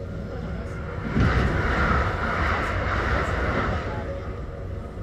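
An oncoming Kintetsu train passing close by on the adjacent track: a sudden rush of air and rumble about a second in that fades over about three seconds. Beneath it runs the steady running noise of the train the sound is heard from.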